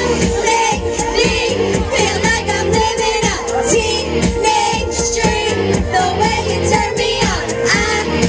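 Karaoke: voices singing into microphones over a loud pop backing track with a steady beat.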